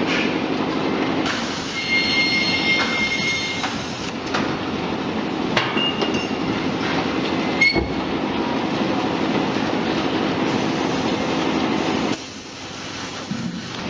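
Continuous fryer's stainless steel mesh-belt conveyor and chain drive running, a steady metallic clatter with a motor hum. Brief high squeals come near the start and a few sharp clicks around the middle. It drops quieter about twelve seconds in.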